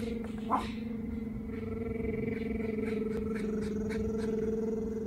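A steady motor drone holding one pitch throughout, with a few faint ticks over it.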